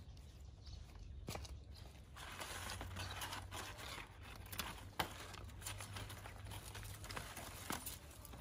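Rustling of vine leaves and paper fruit bags as long beans are picked by hand from a trellis, with scattered clicks and one sharp snap about five seconds in.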